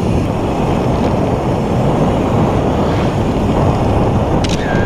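Wind buffeting the microphone of an action camera on a moving mountain bike: a loud, steady low rumble with no break.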